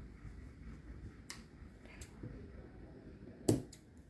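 A few short, light clicks and taps from handling fabric pieces and tools on a work table, the loudest near the end.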